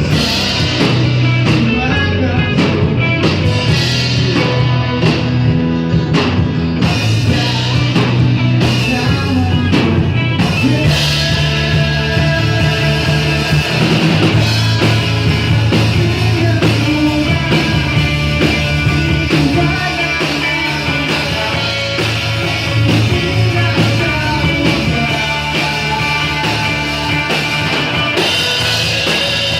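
A rock band playing live, with guitar and a singing voice over a steady, loud mix.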